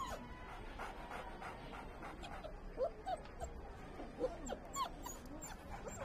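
Several dogs whimpering and yipping in short, high whines scattered throughout, with a couple of louder yelps about three and four seconds in.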